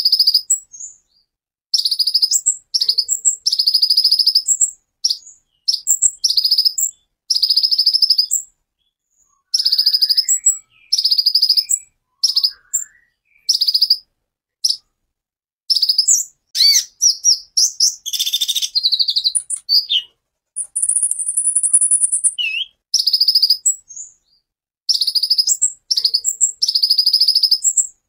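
Van Hasselt's sunbird (kolibri ninja) singing. Its song is short, high bursts of rapid, sharp notes, each under a second long and repeated with brief pauses, with a rasping buzz about two thirds through and a thin, held high whistle a little after it.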